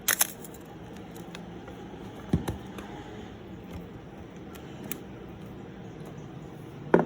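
Clicks and knocks from handling a Canon F-1 camera and its FD 50mm lens: a sharp double click at the start, a dull knock a couple of seconds in, and another sharp click near the end, over a steady low hum.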